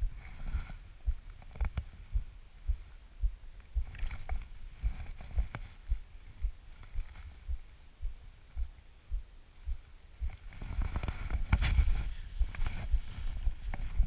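Regular low thuds about twice a second, footsteps picked up through a body-mounted action camera as the rider walks. About ten seconds in, a louder, denser rumble and rattle as the mountain bike rolls off over the dirt trail.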